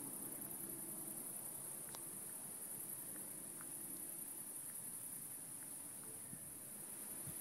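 Crickets chirping in a steady, high continuous trill.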